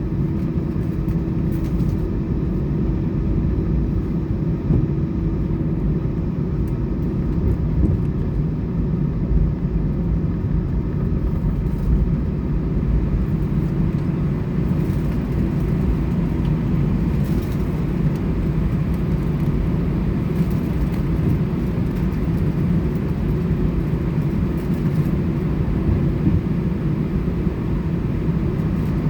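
Steady low rumble inside an Airbus A320 passenger cabin on the ground, from the aircraft's air-conditioning and engines. A faint steady hum fades a few seconds in.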